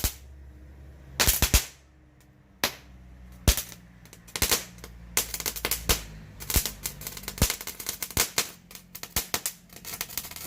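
Crackling fountain firework going off: sharp crackling pops, a few scattered ones at first, then faster and denser from about halfway.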